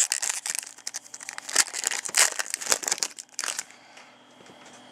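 Crinkling and rustling of trading-card packaging being handled and torn open, a run of irregular crackles that dies away about three and a half seconds in.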